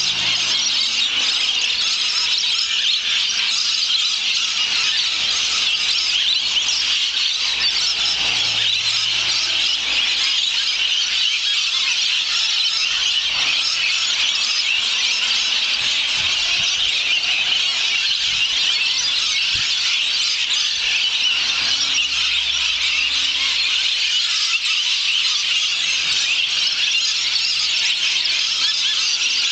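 A dense, unbroken, high-pitched screeching chorus of hundreds of rainbow lorikeets flocking in to roost.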